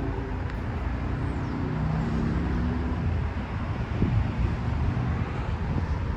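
Wind buffeting the microphone: a loud, gusting low rumble with a faint low hum beneath it.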